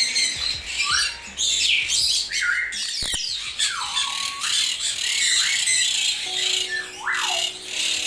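Conures screeching: a run of short, harsh calls, many of them falling in pitch, coming one after another and overlapping.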